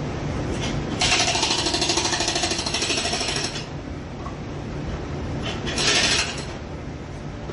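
Jackhammer breaking, in one burst of about two and a half seconds of rapid blows and then a shorter burst of under a second, over a steady low background rumble.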